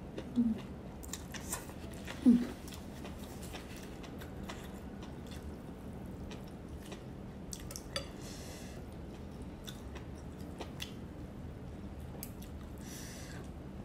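Close-up eating sounds of rice vermicelli noodles and beef: chewing with wet mouth clicks and smacks throughout. Two short voiced sounds from the eater in the first few seconds are the loudest part, and brief noodle slurps come around the middle and near the end.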